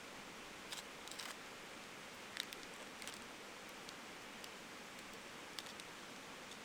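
Steady hiss of mountain wind with a few scattered light clicks and rustles, the sharpest a single tick about two and a half seconds in.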